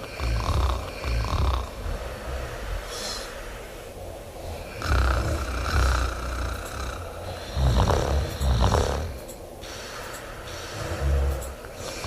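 A woman snoring: a run of irregular snores of different lengths, the loudest two close together about eight seconds in.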